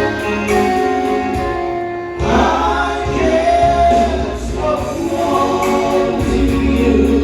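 Live song: a singer's voice over instrumental backing with a steady bass line. The backing drops back briefly about two seconds in before coming in again.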